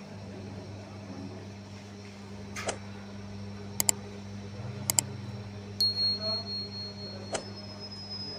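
Steady electric hum of bakery machinery, with a few sharp clicks, two of them quick double clicks about a second apart. Past the middle a thin high steady tone comes in and steps up in pitch.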